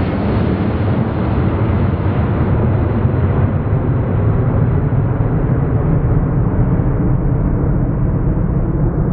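The four Pratt & Whitney F117 turbofan engines of a Boeing C-17A Globemaster III climbing out after takeoff: steady, deep jet noise. Its high hiss gradually dulls as the aircraft draws away.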